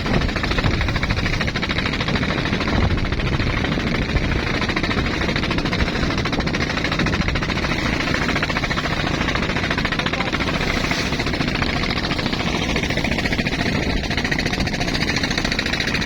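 Motor boat engines running steadily at speed, loud and close, with a fast, even rattle.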